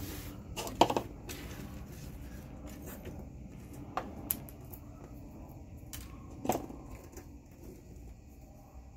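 Small handling noises as hands sift through a pile of shop floor sweepings, with a few sharp clicks and taps, the loudest about a second in, over a steady low rumble.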